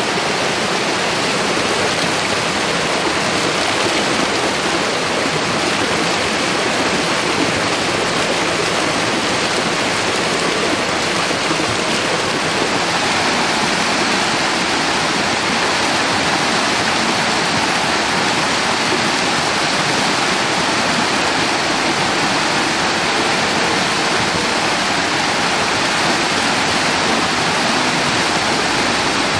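Steady, even rush of water.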